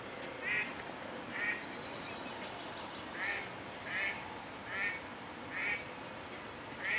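A duck quacking: seven short quacks at irregular intervals, roughly a second apart.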